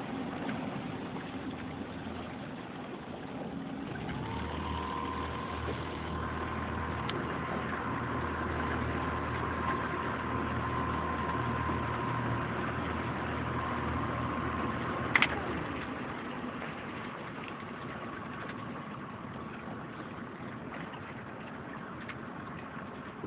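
A motorboat engine running at low speed. Its steady whine rises in pitch about four seconds in and holds, then there is a sharp click about fifteen seconds in, after which the whine falls away and the engine runs on more quietly.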